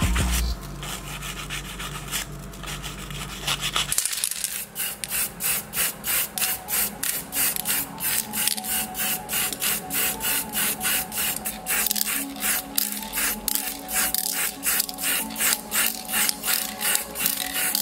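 Spray paint hissing in quick short bursts, a little more than two a second, as a plastic model car body is painted green. This starts about four seconds in, after some rubbing from wet sanding.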